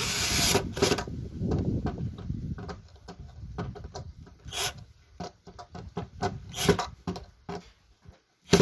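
Cordless drill driving screws through concealed-hinge mounting plates into plywood, with a grinding, rasping rumble for the first few seconds. Scattered short clicks and knocks follow as the drill moves from screw to screw, and a sharp knock lands at the very end.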